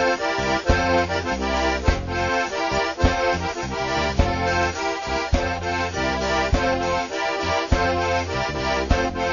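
Button accordion playing a quick melody of rapidly changing notes as an instrumental break in Kenyan mugithi dance music. A low bass line and a steady beat run underneath.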